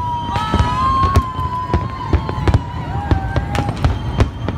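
Aerial fireworks display: rapid, irregular bangs of shells bursting, one after another. A long, high, steady tone sounds over the bangs until about a second before the end.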